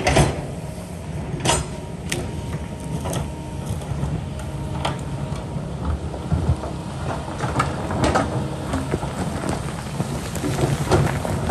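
Kobelco excavator's diesel engine running steadily, with the bucket knocking and scraping against rock and loose stones clattering at irregular intervals.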